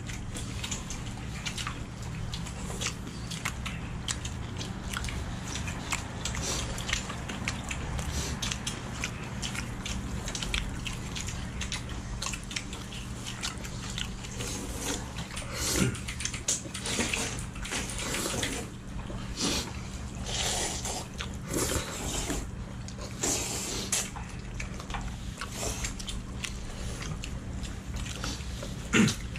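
Several people eating noodles: slurping, chewing, and chopsticks clicking against bowls, with a run of louder slurps in the middle. A steady low hum sits underneath.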